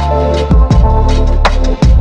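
Electronic background music with a heavy bass line and a steady drum beat.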